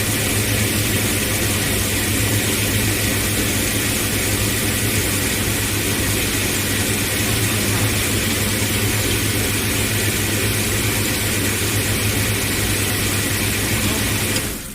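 Brush peeling and washing machine for root vegetables running steadily: a constant low motor hum under an even rushing hiss. It drops off sharply near the end.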